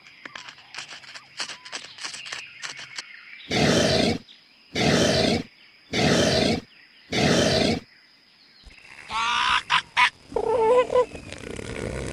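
Northern elephant seal bull calling: four loud, evenly spaced pulsed bellows about a second apart, then rougher, wavering calls near the end. Before them come a few seconds of faint clicks and small squeaks.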